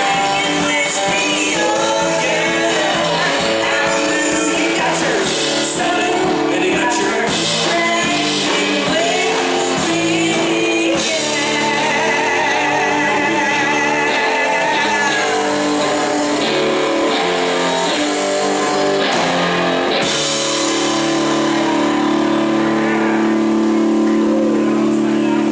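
Live band playing with acoustic guitar, electric guitar, bass and drums, and a woman singing lead. About twenty seconds in, the band settles into a long held chord.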